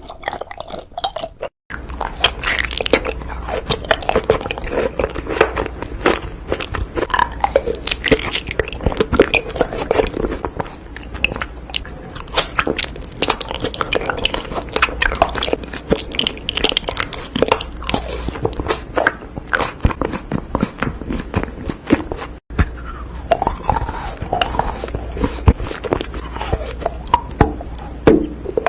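Close-miked eating: crunchy bites and chewing with dense crackling and wet mouth sounds, broken twice by brief cuts.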